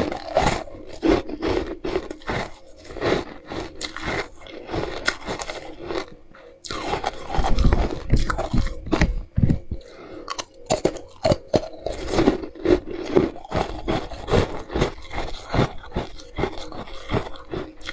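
Close-up crunching and chewing of a piece of ice, with many sharp bites in quick, irregular succession and a low rumble around eight seconds in.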